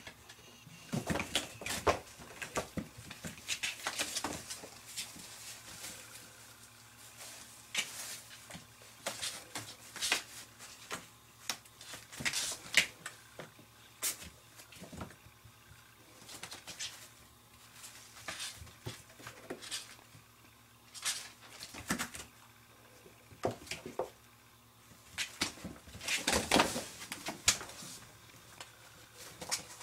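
Kittens scampering and wrestling on sheets of cardboard: irregular scratching, scrabbling and rustling of paws and claws on the cardboard, in clusters with short lulls between.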